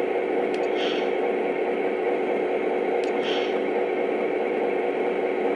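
Steady, noisy electronic diesel rumble from a model Southern Pacific diesel switcher's onboard sound system idling through its small speaker, with a constant hum under it. Two short hisses come about one and three seconds in.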